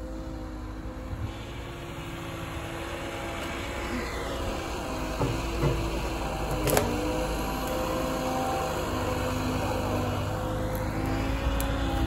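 Diesel engine of a Liebherr 922 road-rail excavator running steadily under hydraulic working load, growing slowly louder, with one sharp knock about two-thirds of the way through.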